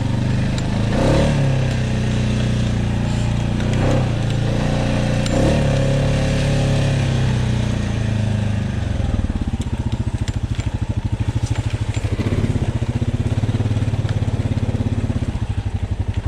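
Honda Rubicon ATV engine running under load as it digs through mud, revving up briefly a few times in the first half. From about halfway it settles into a steady, fast-pulsing low-speed run.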